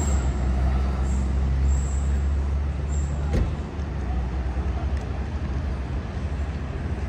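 City street traffic, dominated by a steady low engine drone of a bus or other heavy vehicle. A single sharp knock comes about three and a half seconds in.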